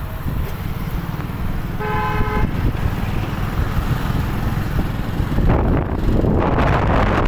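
A vehicle horn sounds once, briefly, about two seconds in, over the steady low rumble of riding a two-wheeler. Wind noise on the microphone builds from about five and a half seconds in.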